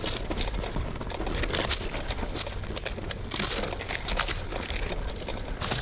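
Road bicycle tyres rolling through dry grass and weeds in a soft field: an irregular crackling, crunching rustle of stalks, over a steady low rumble.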